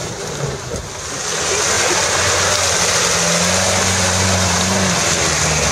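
Land Rover engine running under load as the vehicle works through deep mud, rising slightly about three seconds in and then holding steady revs, over a loud steady rushing noise.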